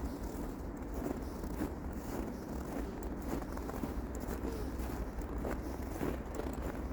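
Footsteps crunching on frozen snow at a steady walking pace, about two steps a second, over a steady low rumble.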